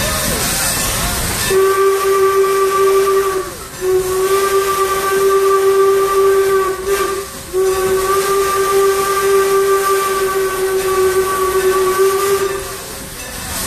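Steam whistle of Norfolk & Western 4-8-0 No. 475 blowing three blasts, each longer than the last, over a steady hiss of escaping steam.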